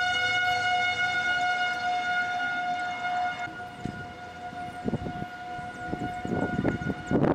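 Outdoor tornado warning siren sounding one steady tone, growing quieter about halfway through, with a few short knocks near the end.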